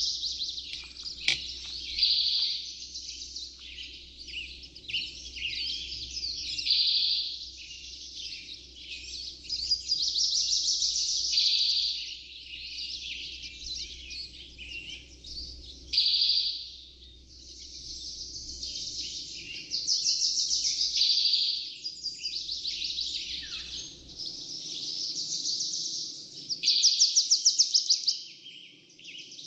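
A flock of small songbirds chirping and calling all at once in a dense, continuous chatter, with a fast, loud trill near the end.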